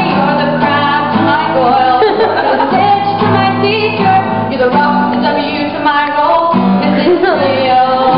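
A woman singing a song while strumming chords on an acoustic guitar.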